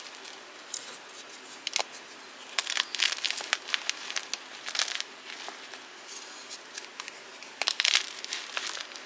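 Blocks of gym chalk being crushed, giving dry, irregular crunching and crackling in uneven bursts, with the loudest flurry near the end.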